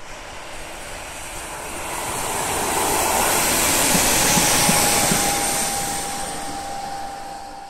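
Czech Railways class 814 diesel multiple unit passing by, its engine and wheel noise swelling to its loudest about halfway through, then fading as it moves away. A few short clicks come at its closest, and a faint high whine lingers as it recedes.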